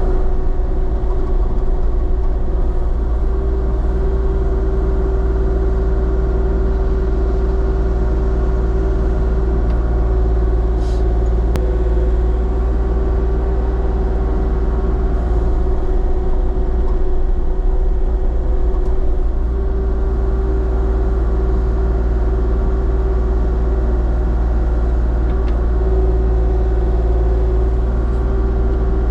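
Diesel engine of compact excavation equipment running steadily, a loud, even drone with a constant whine riding over it.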